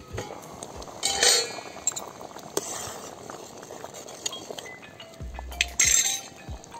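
Steel pot lid clinking, loudest about a second in as it is lifted off, followed by a pot of rasam bubbling at the boil, with a few lighter clinks.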